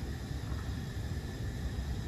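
Steady background room noise: a low rumble with a few faint, steady high-pitched tones above it, and no distinct events.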